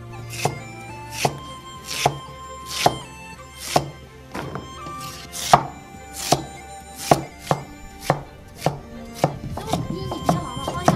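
A kitchen knife chopping white radish on a chopping board, with sharp, evenly spaced strokes a little more than one a second that come faster near the end.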